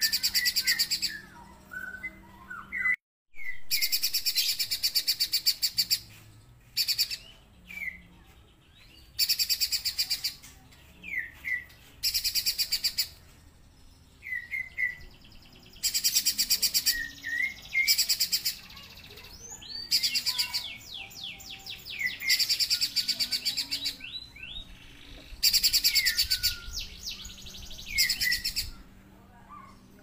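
Caged pijantung gunung (a spiderhunter) singing: repeated bursts of rapid, high trills a second or two long, with short sharp call notes in the gaps between them.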